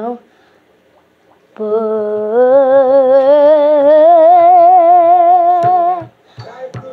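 A boy humming one long held note with vibrato, starting after a short silence, stepping up in pitch about two seconds in and stopping about six seconds in. A few sharp knocks follow near the end.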